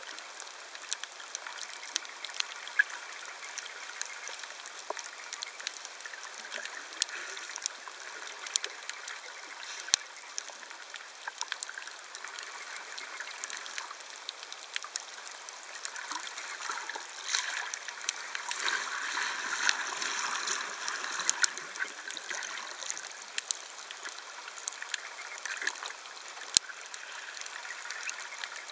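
Underwater sound picked up by a submerged camera over a coral reef: a steady watery hiss scattered with many sharp clicks. It grows louder and denser for a few seconds about two-thirds of the way through.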